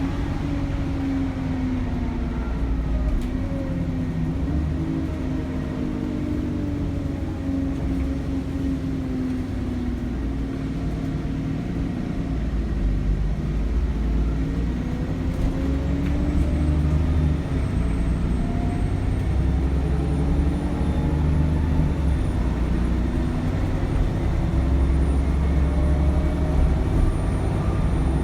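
Cummins ISBe diesel engine of an Alexander Dennis Enviro 400 double-decker bus under way, heard from inside the bus: a steady low rumble with whines that fall in pitch over the first half and climb steadily over the second. A thin, very high turbocharger whistle comes in a little past halfway and holds, rising slightly.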